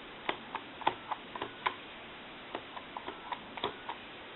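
Series of faint, sharp clicks from dialing digits on a Mickey Mouse novelty telephone, about four a second, with a short pause about two seconds in.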